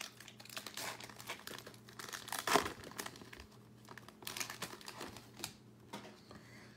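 Foil wrapper of a basketball trading-card pack being torn open and crinkled by hand, in irregular crackles and rustles, loudest about two and a half seconds in.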